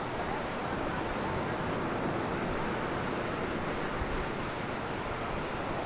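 Steady wash of beach surf and wind.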